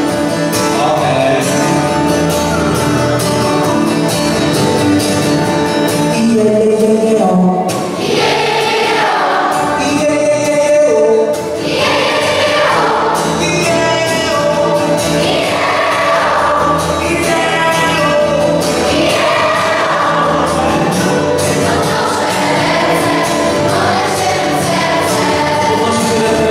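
Large youth choir singing a gospel song in Polish, with acoustic guitar and keyboard accompaniment.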